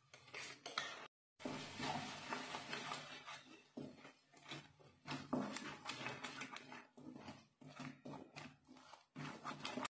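Wooden spatula stirring tomato puree into fried masala in a metal kadhai, with irregular scrapes and knocks against the pan.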